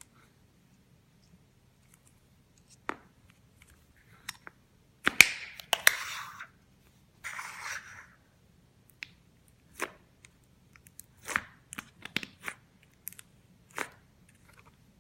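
Handling a tub of clear slime and its packaging: scattered sharp clicks and taps, with two short rustling stretches about five and seven seconds in.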